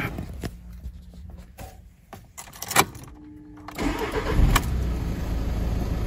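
A few sharp clicks, then about four seconds in the Audi A3's engine cranks, catches and settles into a steady idle. It cranks because the starter relay now gets its ground feed through a jumper, bypassing the faulty control module that had left the car with no crank.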